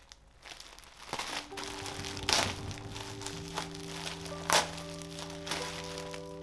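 Clear plastic wrapping crinkling as it is handled and pulled off a folded cat play tunnel, with sharp crackles about two seconds in and again near four and a half seconds. Background music with held notes comes in about a second in.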